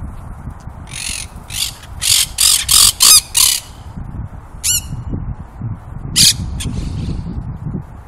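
Monk parakeets (Quaker parrots) squawking harshly: a quick run of about seven loud calls about a second in, then a few more spaced-out calls.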